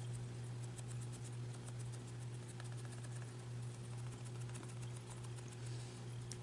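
Makeup sponge dabbing cream makeup onto skin: faint, quick, irregular taps and soft scratches over a steady low electrical hum.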